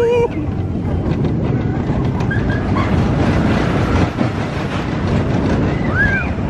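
Expedition Everest roller coaster train running at speed along its steel track, with a steady clattering rumble. Riders give a held yell right at the start and a short rising-and-falling whoop about six seconds in.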